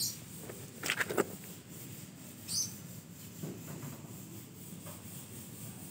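Rubbing and rustling handling noise, with a few short clicks about a second in.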